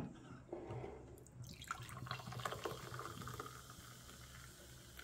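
Original Fanta orange soda pouring and fizzing, heard faintly, with a soft crackling hiss from about a second and a half in.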